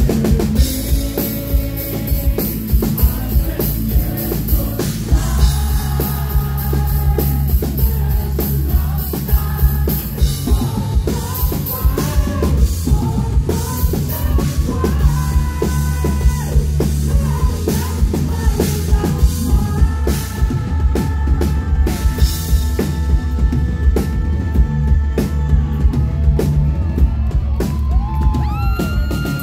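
Live rock band playing loudly: a male singer over a driving drum kit, bass and distorted electric guitars.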